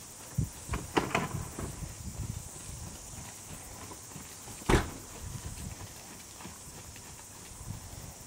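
A pony's hoofbeats thudding dully on a sand arena surface as it canters, with one sharper, louder knock about halfway through. A steady high hiss runs underneath.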